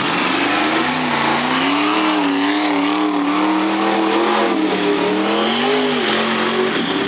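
Lifted mud-bog truck's engine revving hard as it drives through a mud pit, its pitch rising and falling again and again as the throttle works. The engine starts about a second in and drops away near the end.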